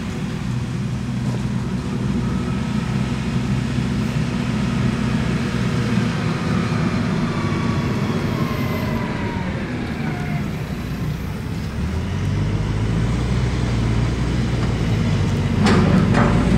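Diesel engine of farm machinery running steadily, its note turning deeper about twelve seconds in, with a few sharp knocks near the end.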